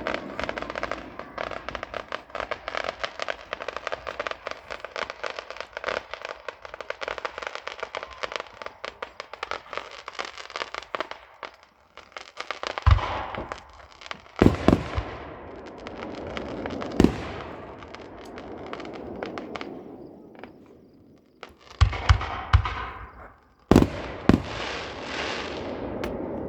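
Aerial fireworks going off: first a long stretch of dense, rapid crackling, then a series of loud bangs, several close together about nine seconds from the end, each trailing off into crackle.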